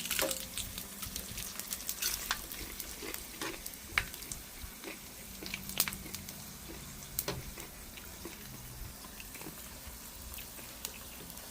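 Dried fish frying in hot oil in an electric pan: a steady sizzle with scattered sharp crackles and pops.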